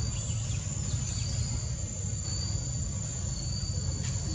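Insects droning with a steady high-pitched whine, a second high tone fading in and out, over a steady low rumble.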